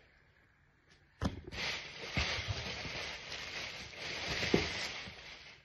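A click about a second in, then several seconds of steady rustling of packaging being handled, with a few soft knocks.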